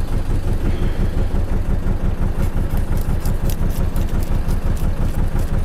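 A fishing boat's engine running steadily with a fast, even low beat, with faint light clicks over it from about halfway through.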